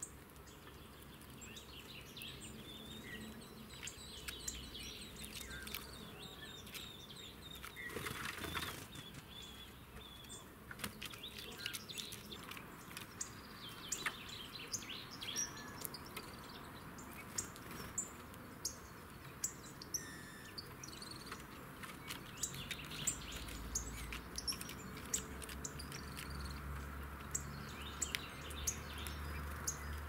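Small birds chirping at a seed-strewn wooden bench, with a brief flutter of wings about eight seconds in. From a little past ten seconds, a steady run of sharp clicks as birds peck sunflower seeds against the wood.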